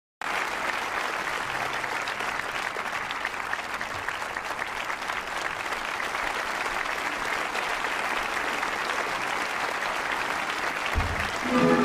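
Steady applause from an audience, starting suddenly and holding an even level. Music comes in near the end.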